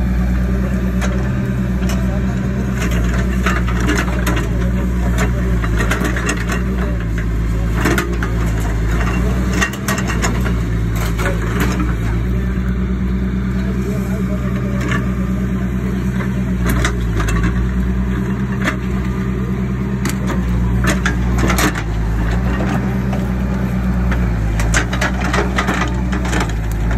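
A motor vehicle's engine idling steadily close by, with scattered clicks and knocks over it.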